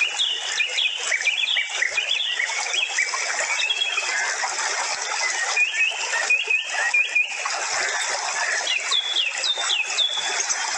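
Small birds chirping: groups of short, quick chirps, with pauses between groups, over a steady dense hiss.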